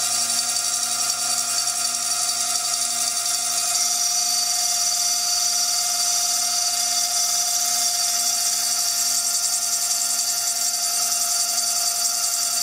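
CNC milling machine's high-speed spindle whining steadily as a freshly sharpened cutter grinds an engraving into a glass beer bottle.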